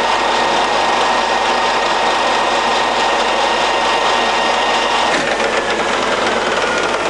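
Colchester Master 2500 centre lathe's geared headstock running at 1860 rpm with a steady gear whine. About five seconds in there is a knock, and the whine starts falling in pitch as the spindle slows.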